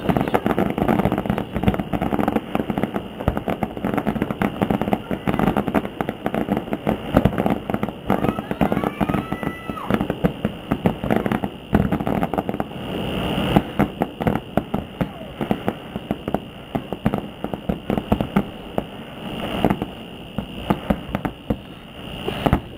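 A fireworks display: many aerial shells bursting in a rapid, overlapping string of bangs and crackles.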